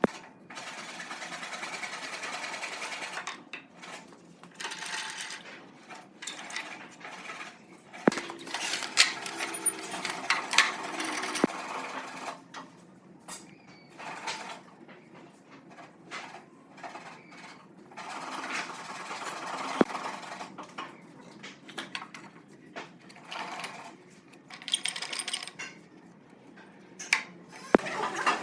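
A small power tool running in short bursts that start and stop every second or few seconds, with sharp clicks and knocks in between.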